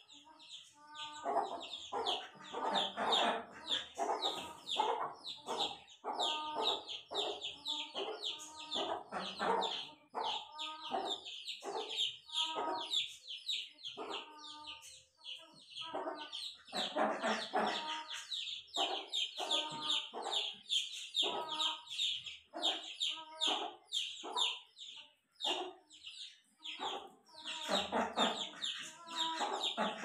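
Chickens clucking over and over, with a constant run of quick, high-pitched chirping above them.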